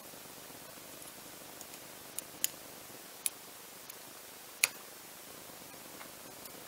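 Small, sharp metallic clicks and ticks from a precision screwdriver working a tiny screw in the rear mount of a Nikon zoom lens, about five at irregular intervals, the loudest about four and a half seconds in, over a faint steady hiss.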